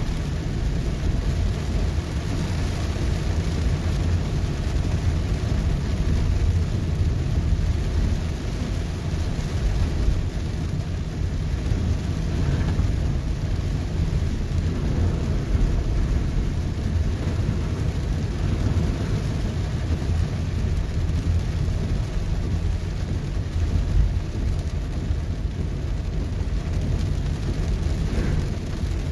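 Heavy rain on a moving car, heard from inside the cabin: a steady wash of rain on the roof and windshield over a low, continuous rumble of road and engine noise.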